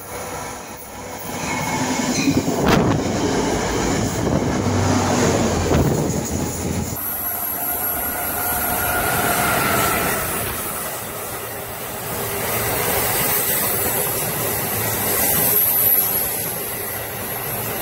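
Amtrak passenger train, an ACS-64 electric locomotive hauling Amfleet coaches, passing close by at speed: steel wheels rumbling and clacking on the rails, growing louder over the first two seconds, with a thin high wheel squeal in the second half.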